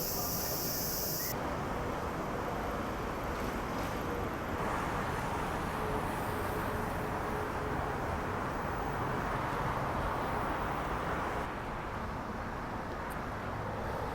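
Crickets chirring high and dense for about the first second, cut off abruptly, then a steady outdoor rushing noise like distant traffic.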